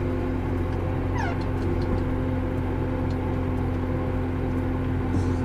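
Steady diesel engine drone heard from inside the Case IH 305 Magnum tractor's cab, with a short falling squeak about a second in and another near the end.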